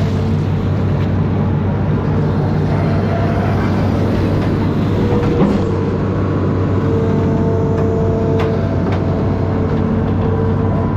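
Amphibious excavator's diesel engine running steadily under work, with a constant hum and a high steady whine. There is a short knock about five and a half seconds in.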